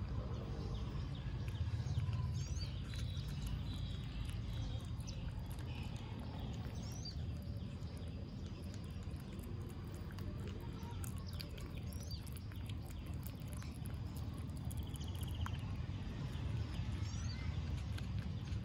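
Baby otter chewing raw catfish, with many short wet smacking and crunching clicks. A few brief high chirps come and go over a steady low background rumble.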